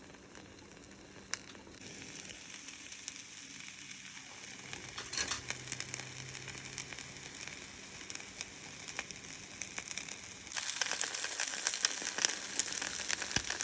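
Egg-white omelet frying in a pan: a steady sizzle with small crackles, which picks up about two seconds in and gets louder near the end.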